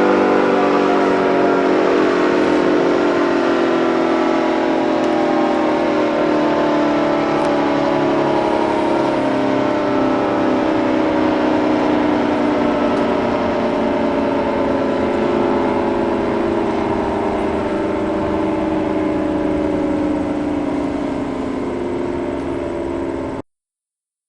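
Recorded outdoor tornado warning siren winding down, several tones together sliding slowly and steadily lower in pitch, then cutting off abruptly near the end.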